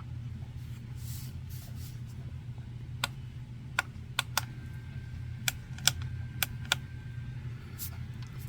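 A steady low hum, with an uneven run of about nine sharp clicks and taps in the middle: small hard objects being handled.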